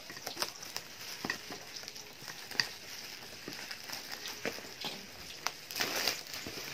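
Black bubble-wrap packaging crinkling and crackling as it is cut and pulled open, with scattered sharp clicks and a denser burst of crackling near the end.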